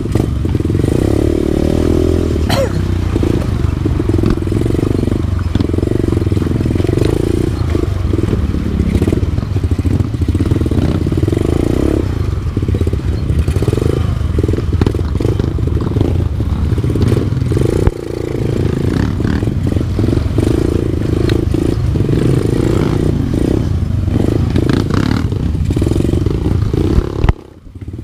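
Enduro dirt bike engine running and revving on a rough trail, with clattering and scraping from the riding. The sound drops out briefly near the end.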